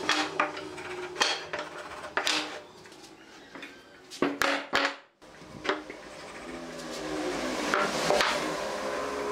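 Squared wooden beams being lifted, shifted and set down on a wooden workbench: several sharp knocks of wood on wood, with sliding and rubbing in between.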